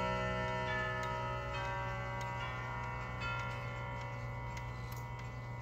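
Chimes of a Howard Miller triple chime wall clock ringing: single notes struck every half second to second, each left to ring on over the others, set off by turning the minute hand.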